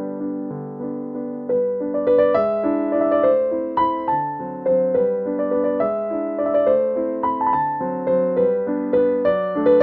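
Background piano music: a gentle melody of struck notes that grows busier and a little louder about two seconds in.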